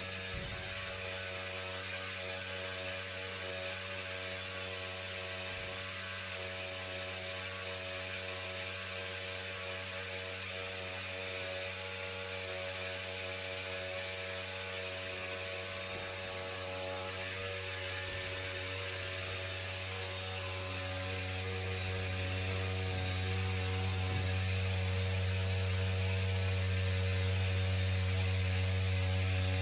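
HVAC equipment running with a steady low hum, the noise the service call is about. It grows louder about two-thirds of the way through.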